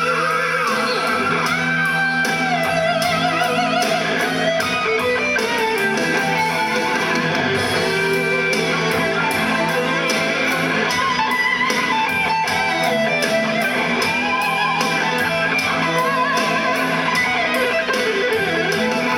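Loud recorded pop-rock music with electric guitar over a steady beat, an instrumental passage of a song.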